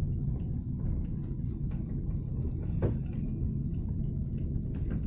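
A car driving along a forest road, heard from inside the cabin: a steady low rumble of engine and tyres. One short sharp sound comes about three seconds in.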